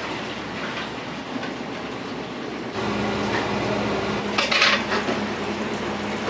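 Restaurant kitchen noise: a steady hiss, joined about three seconds in by a louder, steady low hum, with a brief clatter of dishes about halfway through.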